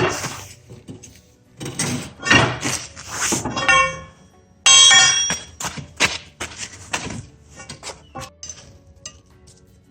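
Steel parts being knocked together: a series of clanks and thunks, several ringing on with a clear metallic tone for a moment, the loudest about five seconds in.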